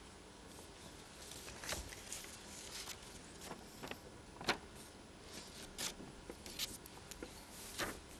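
Quiet room tone with faint, irregularly spaced small clicks and rustles, about eight in all.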